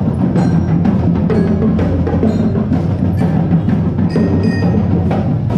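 Loud music with a steady percussion beat of sharp strikes, about two a second, over low sustained tones.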